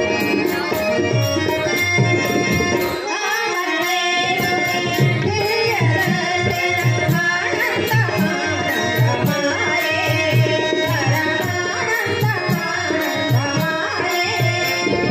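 Telugu village bhajan music: tabla drums keep a steady beat over a held drone, with small hand cymbals (talalu) ticking fast in time. The drums drop out briefly about three seconds in, and voices singing come in.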